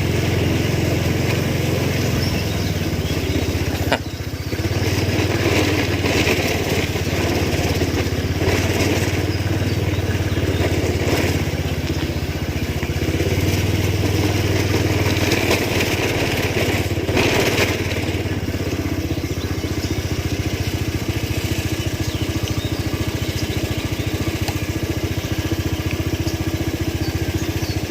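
Small motorcycle engine running steadily at an even speed, with a sharp click about four seconds in.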